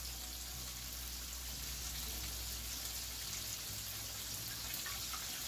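Hot vegetable oil sizzling steadily as food deep-fries in pans on the stovetop.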